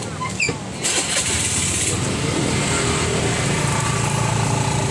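A motor vehicle engine running close by, with a hissy burst about a second in, then a steady hum that grows louder.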